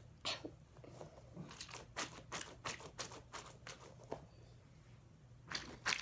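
A squishy toy filled with Orbeez, sticky to the touch, being squeezed and handled in the hand, giving a quick run of short crackling clicks. A few more clicks come near the end.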